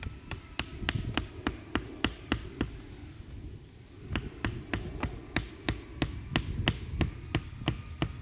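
Rhythmic sharp knocks, about three a second, in two runs with a short pause about three seconds in, over a low steady rumble.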